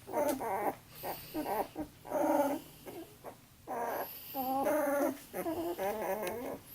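Eleven-day-old red standard poodle puppies crying: a string of about seven short, wavering cries.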